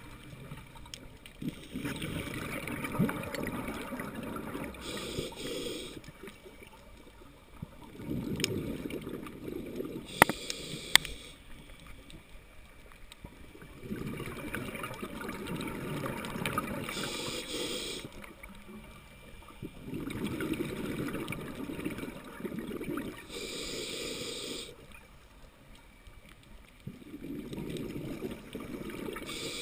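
Scuba diver breathing through a regulator underwater: a short hiss on each inhale, then a few seconds of bubbling exhaust, about five breaths in a steady rhythm. Two sharp clicks come about ten seconds in.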